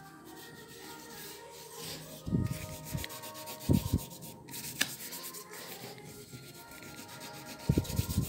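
Charcoal scratching and rubbing across a painted acrylic surface as lines and scribbled marks are drawn. Several dull thumps sound a couple of seconds in, around four seconds in, and again near the end.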